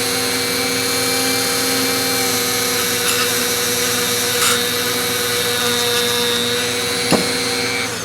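An electric power tool's motor running steadily, with a few short clicks of contact along the way, then switched off and winding down near the end.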